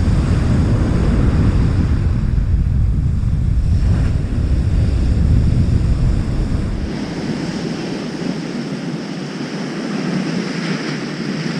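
Surf breaking and washing up the beach, with wind buffeting the microphone. The low wind rumble drops away about seven seconds in, leaving the hiss of the waves.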